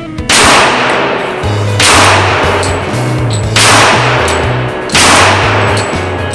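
Four shots from a Kimber Stainless II .45 ACP 1911 pistol, about one and a half seconds apart, each leaving a ringing tail, over background music with a steady bass line.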